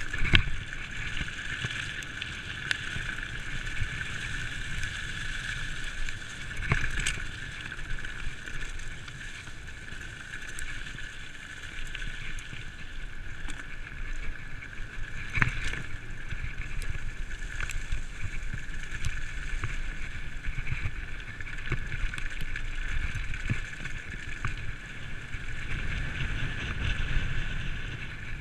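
Giant full-suspension 27.5-inch mountain bike riding fast down a dirt trail: a steady rolling rattle of tyres and frame over the ground, mixed with wind on the microphone, and a few sharp knocks as it hits bumps.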